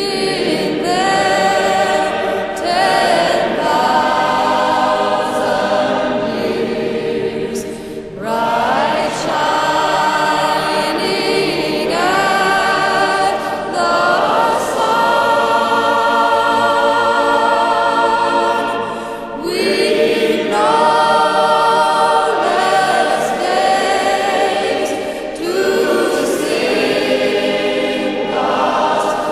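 A choir singing slow, held phrases with vibrato, with brief breaks between phrases about 8, 19 and 25 seconds in.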